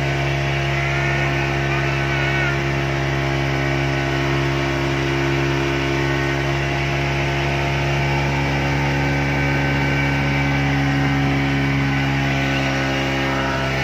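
Speedboat engine running steadily at cruising speed, a constant hum with the noisy rush of water and wind over it.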